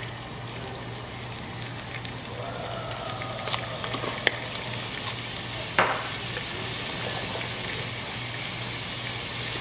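Sun-dried tomatoes and minced garlic sizzling in a hot stock pot. The sizzle grows slowly louder, and a few sharp clicks come about halfway through.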